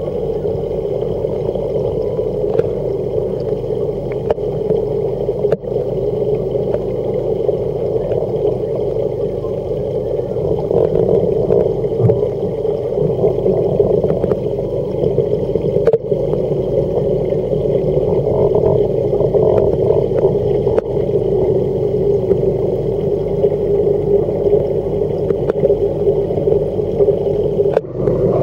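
Saltwater reef aquarium's pumps and filtration running: a steady hum with a rush of moving water, unchanging throughout, with a few faint clicks.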